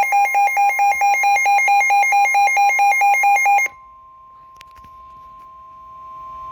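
Electronic alert tone warbling rapidly back and forth between two pitches, about four times a second, then cutting off abruptly about three and a half seconds in; a much fainter steady single tone follows, the lead-in to an Emergency Alert System weather warning.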